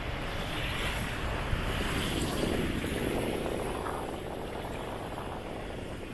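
Harbour water lapping and washing against a concrete quay edge, swelling a little about two to four seconds in, with wind rumbling on the microphone.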